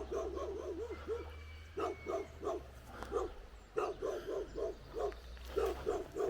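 A dog barking in quick runs of short barks, several a second.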